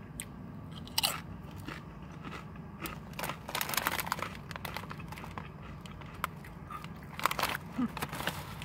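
Tortilla chips being bitten and chewed close to the microphone: a sharp crunch of a bite about a second in, then irregular bursts of crunching as they are chewed, with the chip bag rustling near the end.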